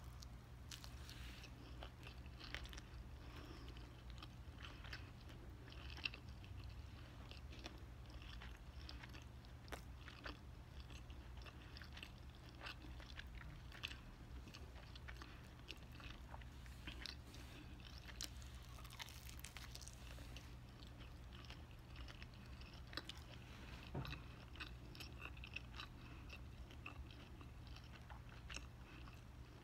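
A person chewing a mouthful of pepperoni pizza, faint and close, with small crunches of the crust scattered throughout.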